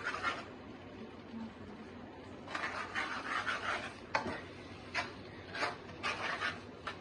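Spatula stirring and scraping chili paste frying in a pan: a stretch of scraping, then several short sharp scrapes and knocks against the pan.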